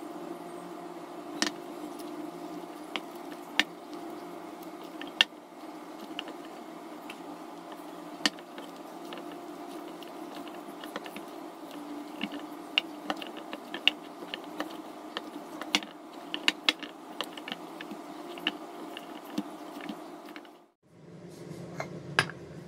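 Hands kneading dough in a ceramic bowl: scattered sharp clicks and knocks, busiest in the second half, over a steady background hum.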